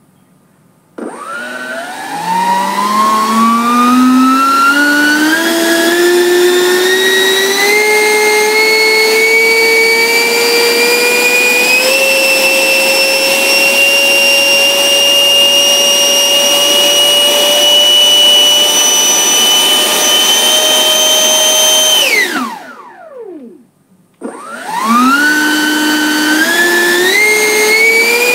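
90mm electric ducted fan (HET 9305-700 fan unit driven by a Turnigy XK4074 1400KV brushless motor on 8S) spooling up in steps to a loud, high-pitched whine. It holds at high power, drawing around 750 W, then is throttled off about 22 seconds in and winds down quickly. After a brief pause it spools up in steps again near the end.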